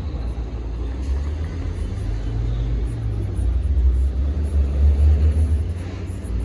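Low rumble of passing road traffic, swelling a little about halfway through.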